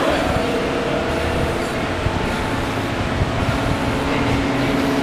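A steady mechanical drone with several humming tones that shift slightly in pitch.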